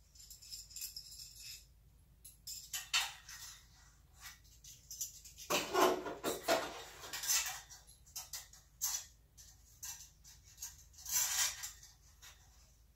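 Irregular metallic clinks, jingles and rattles of hand tools and exhaust hardware being handled up under the car, with a louder cluster of clatter about six seconds in and another near eleven seconds.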